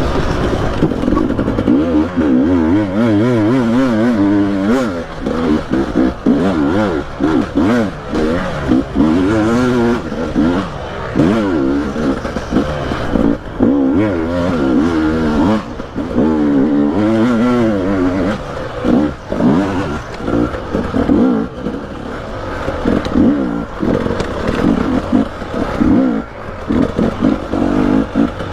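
Dirt bike engine revving up and down over and over, as when riding enduro, with scattered knocks.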